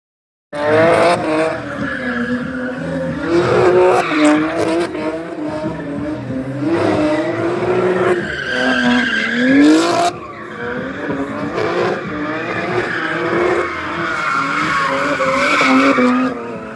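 BMW M car's engine revving hard, rising and falling over and over, while its rear tyres spin and squeal in a burnout. It starts abruptly about half a second in.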